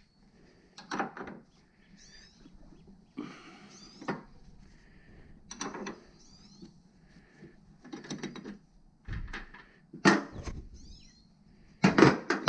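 Irregular clinks, knocks and clatters of hand tools on metal suspension parts, about six bursts, the loudest near the end, with short high chirps between them.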